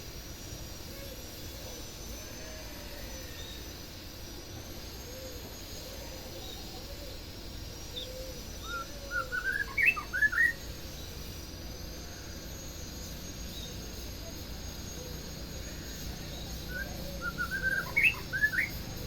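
White-rumped shama (murai batu) singing: two short bursts of quick, rising chirping notes, one about halfway through and one near the end, over a steady background hum.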